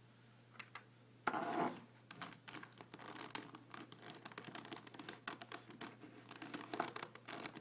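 Plastic pieces of a 5x5 Rubik's Cube clicking and scraping as a flat screwdriver pries them out, in quick irregular ticks, with one longer, louder scrape about a second and a half in.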